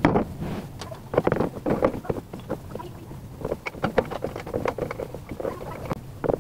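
Irregular knocks, clicks and scraping of an angle grinder's body being pushed and fitted into a welded steel bracket under a table; the grinder is not running.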